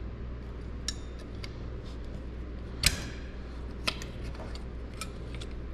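Small clicks and knocks of a power-antenna motor assembly and its clamp being handled on a workbench. The sharpest knock comes about three seconds in and another a second later, over a low steady hum.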